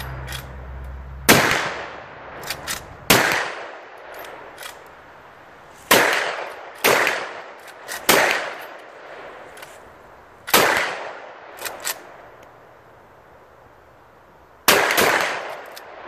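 Two BigHorn Armory Spike Driver lever-action rifles in .500 Smith & Wesson being fired in turn: about seven sharp, loud shots at irregular intervals, two of them close together near the end. Between some shots come short metallic clicks of a lever being worked.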